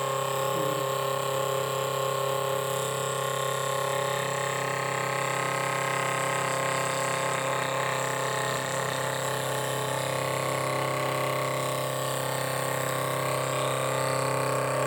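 A fan running with a steady hum made of several constant tones and a hiss. It is an abnormal, annoying noise that the fan should not be making; the fault's location is unknown.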